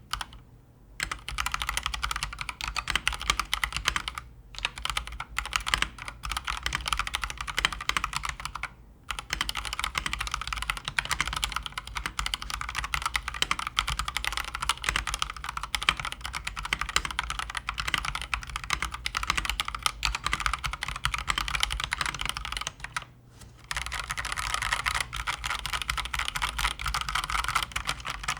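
Fast typing on an Akko mechanical keyboard: a dense, continuous clatter of key clicks, broken by a few brief pauses.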